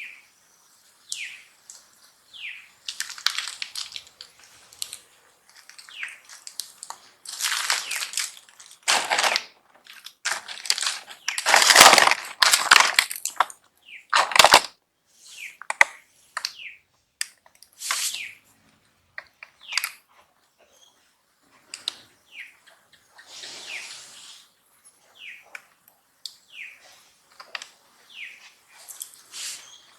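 Short high chirping calls, each falling in pitch, repeated about once a second, mixed with several louder bursts of rustling noise, the strongest about halfway through.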